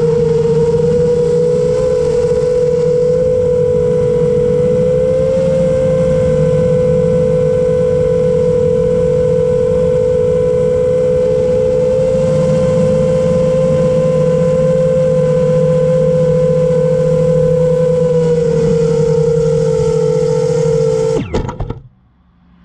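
The motors and propellers of a 7-inch FPV quadcopter, an iFlight Chimera 7 Pro, give a steady high whine heard from its onboard camera. About 21 seconds in, the whine stutters and cuts off suddenly as the drone comes down onto the grass.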